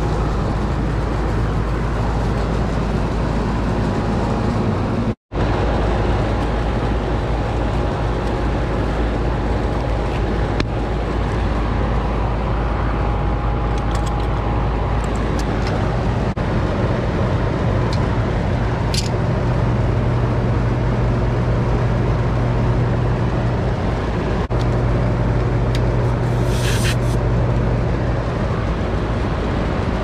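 Goodman 5-ton air-conditioner condensing unit running, a steady drone of its outdoor fan and compressor with a low hum. A few clicks, then a short hiss near the end, come as the gauge hoses are connected to the suction service port.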